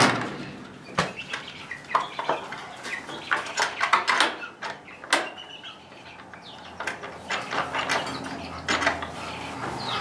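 Scattered clicks and light metallic clinks of a small metal hook latch being handled and fitted on a wooden door frame, with a sharp click about a second in and another near five seconds.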